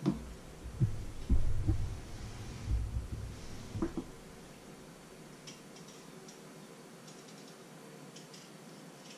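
Low thuds and knocks in the first four seconds as potatoes and a bowl of water are handled on a wooden cutting board, then faint quick scraping clicks of a small paring knife peeling a raw potato, over a steady faint hum.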